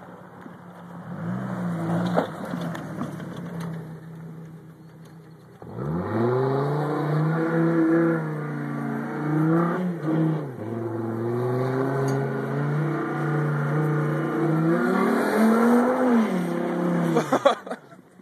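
2005 Chevrolet Colorado pickup's engine revving under load off-road: a short rev about a second in, then a long climb in pitch held high, dipping about ten seconds in and rising again before falling away and cutting off near the end. A few sharp cracks come just before it stops.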